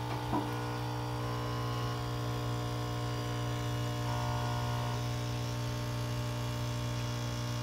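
Três Corações Passione capsule coffee machine running its pump while it dispenses a hot chocolate: a constant, even hum that holds steady throughout.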